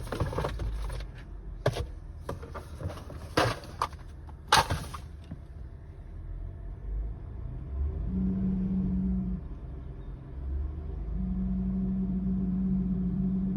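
2012 Honda Odyssey's 3.5-litre V6 idling with a steady low rumble, with a few knocks and clicks in the first five seconds. A steady low hum then comes in twice, first for about a second and then for about three seconds. This is the intermittent mystery noise, which taking off a drive belt did not cure.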